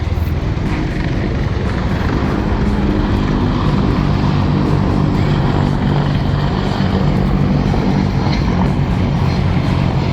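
Propeller aircraft engines droning steadily, a constant low hum with a rushing noise over it.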